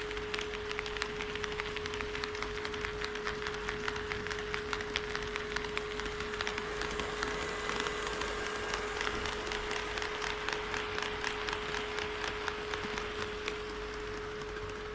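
HO scale model train rolling along KATO Unitrack, its wheels clicking rapidly and unevenly on the track, over a steady high hum.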